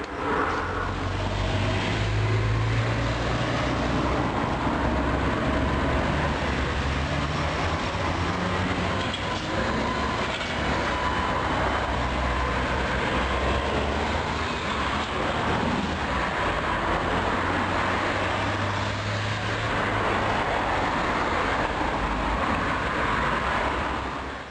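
City street traffic with Škoda trolleybuses running by: a steady low motor hum and a faint electric whine over tyre and road noise.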